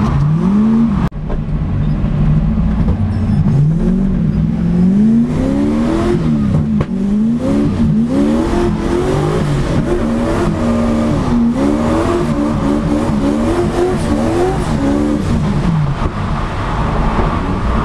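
Turbocharged Toyota 1UZ-FE V8 in a Nissan 200SX drift car, heard from inside the cabin, revving up and falling back over and over as the throttle is worked on track. The engine note drops out briefly about a second in.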